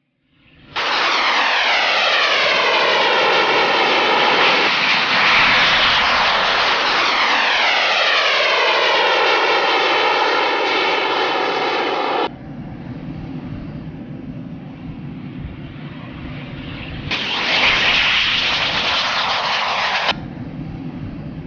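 Airplane engines flying low past, their pitch falling as they go by, twice in a row. The sound cuts abruptly to a quieter, steady engine drone. A loud engine pass of about three seconds comes in just as sharply before the drone returns.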